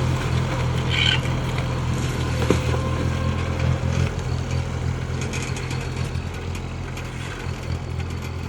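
Bobcat S70 skid-steer loader's small diesel engine running steadily while it works, with a brief high squeak about a second in and a single knock partway through.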